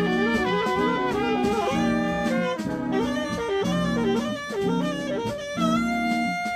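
Live jazz quintet playing a jazz waltz: alto saxophone and trumpet carry the melody in long held notes that step downward, over electric guitar chords repeating in an even pulse, upright bass and drums.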